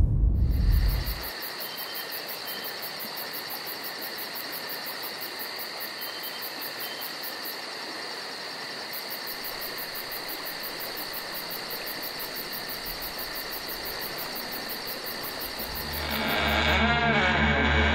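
Steady, fast-pulsing high-pitched chirring of insects, after the low rumble of a boom dies away in the first second. Music comes in near the end.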